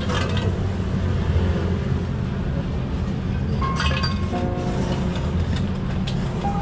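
Chopsticks and a spoon clinking against a ceramic bowl as soupless ramen noodles are stirred and turned, with a cluster of clinks about four seconds in. Underneath is a steady low rumble of shop noise.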